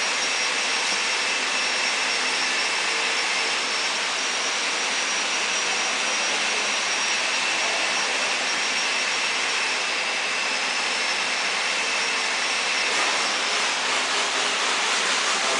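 Steady loud machine hiss with two high, even whining tones: background noise of factory machinery.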